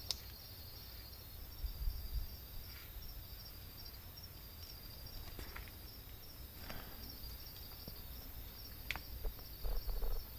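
Night insects chirping in a steady, pulsing high trill, with a few faint rustles and knocks, the loudest about two seconds in and near the end.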